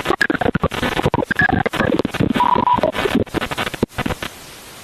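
People's voices calling and shouting, broken up by many sharp crackling clicks, then a short steady low hum near the end.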